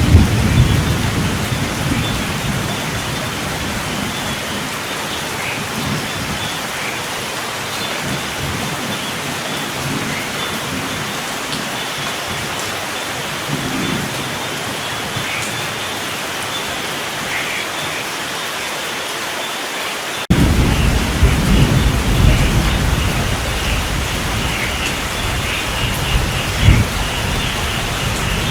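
Steady rain with rolling thunder. A rumble fades away over the first few seconds; about two-thirds of the way through another starts abruptly and rolls on, with a sharper crack near the end.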